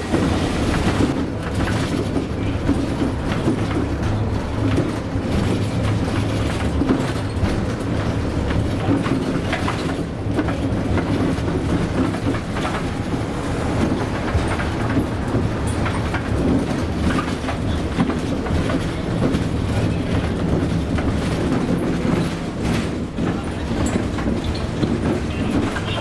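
Inside a moving city bus: the engine drones steadily under constant rattling and knocking from the bus body and fittings as it rides along.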